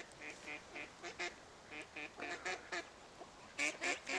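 Ducks quacking in quick runs of short calls, several a second, the loudest near the end.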